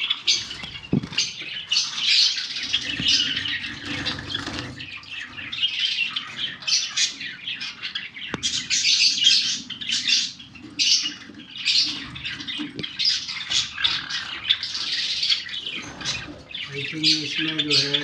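A shed full of caged aviary birds, among them Java sparrows, chirping and squawking in a dense, high-pitched chatter that never lets up. There are a few short knocks from handling.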